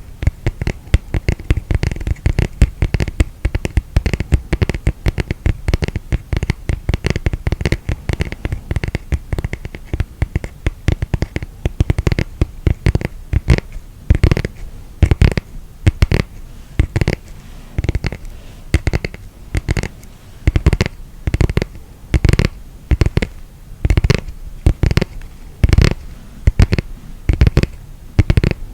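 Close-up fingers scratching and tapping on a miniature tatami mat's woven rush surface. It starts as a dense run of scratchy clicks, then, about halfway, slows into separate taps with a dull thud, roughly one or two a second.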